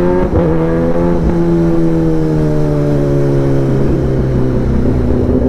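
Kawasaki ZX-10R inline-four engine with an SC Project exhaust, heard from the rider's seat while cruising on light throttle. The engine note holds steady with the revs slowly sinking, over low wind rush, and breaks briefly about two-thirds of the way through.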